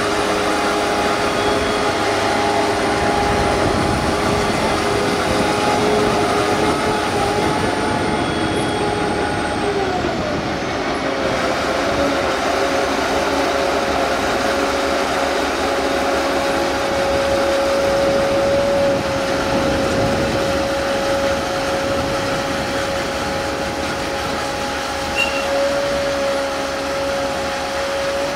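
Tracked launch-and-recovery tractor of an RNLI Shannon-class lifeboat, running as it drives across the beach carrying the boat. It is a steady mechanical drone with a whine, and the whine shifts in pitch about ten seconds in, then holds.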